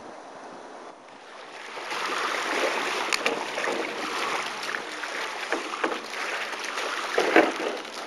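Small waves lapping on a pebble shore with wind on the microphone, rising after a quieter first second and a half. Pebbles click and knock underfoot and in hand throughout, the loudest knock about seven seconds in.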